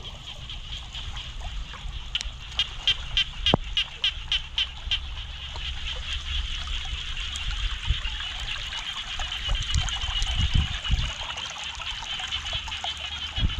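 A steady, high-pitched night chorus of frogs and insects in the early rainy season, with a quick run of sharp rhythmic calls two to five seconds in. Floodwater trickles underneath, and a few low thumps come near the end.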